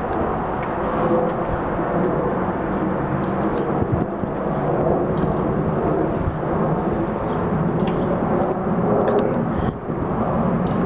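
Twin-engine jet airliner passing overhead, its engines giving a steady rumble, with a brief dip in level near the end.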